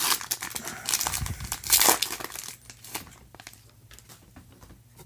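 Foil wrapper of a trading-card pack being torn open and crinkled, loudest in the first two seconds, then fainter rustles and clicks as the cards are handled.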